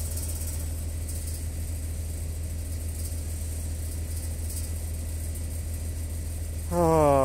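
An engine running steadily with a low, even hum. A man's voice starts near the end.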